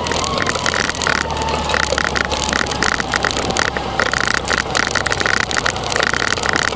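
Motorcycle engine idling steadily, with an irregular crackling noise over it.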